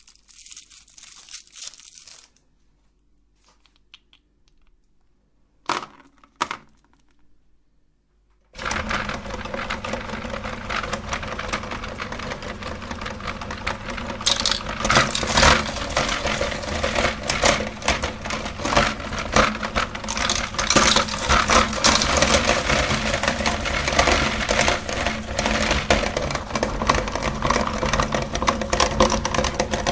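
Brief crinkling, then a few seconds of near quiet broken by a couple of knocks. About eight seconds in an electric meat grinder switches on suddenly and runs steadily, its motor humming under dense crunching and cracking as hard candy is ground.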